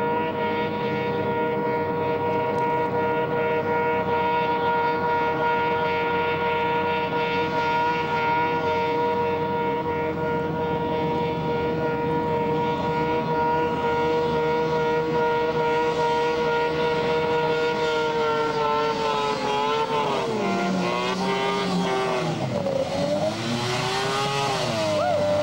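Polaris snowmobile's two-stroke engine running at a steady high pitch as the sled skims across open water, then the pitch dips and rises several times with the throttle in the last several seconds.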